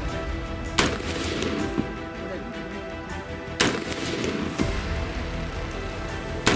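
Colt M4 carbine in 5.56×45 mm NATO fired in single shots: three sharp reports about three seconds apart, with fainter cracks between them.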